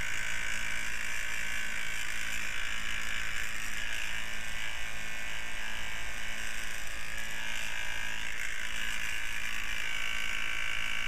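Small electric fan running steadily: an even whir with a low hum underneath.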